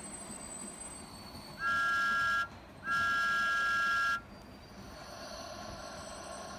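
Model Thomas the Tank Engine locomotive sounding its whistle twice, a short toot about one and a half seconds in and a longer one right after, each a steady, even tone, over the low running noise of the garden train.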